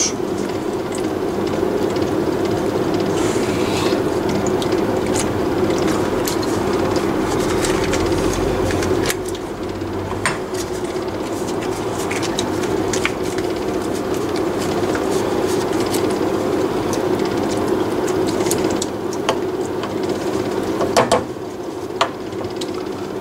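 A kitchen appliance running with a steady hum, its deepest part dropping away about nine seconds in. Over it come scattered light clicks and scrapes of a silicone spatula against a glass baking dish as cream is spread, with a few louder knocks near the end.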